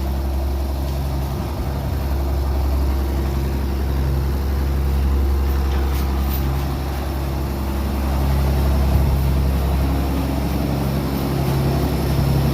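A heavy vehicle engine running steadily, its note swelling and easing a little.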